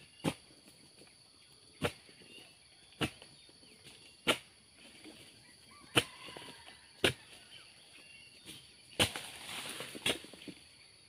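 Sharp strikes of an oil-palm harvesting chisel (dodos) chopping into the frond bases and bunch stalks of a young oil palm, about seven blows spaced a second or so apart, with a rustle of a cut frond coming down around nine seconds in. A steady high insect hum underneath.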